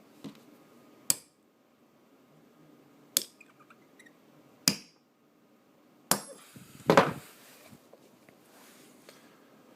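Hammer tapping a punch to drive a Ruger LCP's firing pin flush with the top of the slide: about four sharp strikes a second or two apart, then a louder, longer cluster of blows about two-thirds through.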